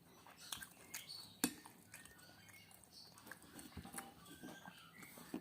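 Close-miked eating sounds of someone eating seafood cap cay: soft chewing and wet mouth noises with scattered sharp clicks, a few of them louder, about half a second, one and a half seconds and near the end.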